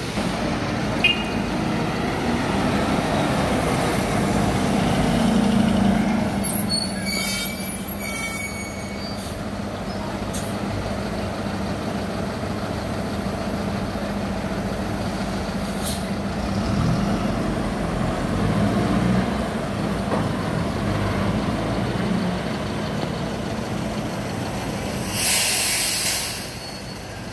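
Diesel city buses running steadily, one pulling past close by. Air brakes squeal and hiss about six seconds in, and a sharp burst of air hisses near the end.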